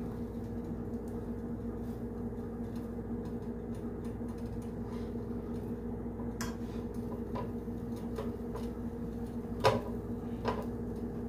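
A slotted metal spatula tapping a few times against a nonstick frying pan, the loudest tap near the end, over a steady low hum.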